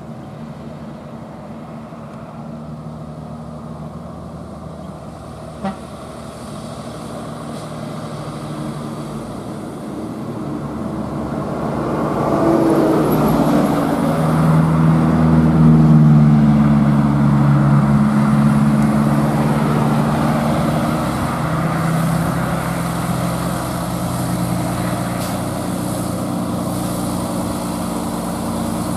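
Loaded Mitsubishi Fuso diesel cargo trucks running in a line, their engines growing louder as they draw near and pass about halfway through, then staying loud as the next ones follow. One short sharp click about six seconds in.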